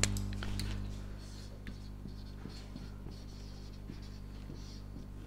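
Marker pen writing on a whiteboard: a series of short, faint rubbing strokes as a word is written, over a steady low hum.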